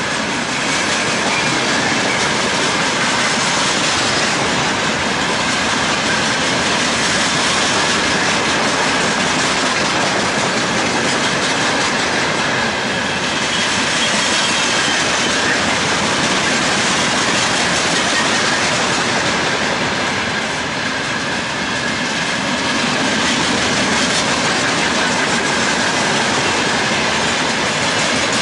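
Freight train of open gondola wagons rolling past close by: a loud, steady noise of steel wheels running on the rails, with a faint thin high whine running through it.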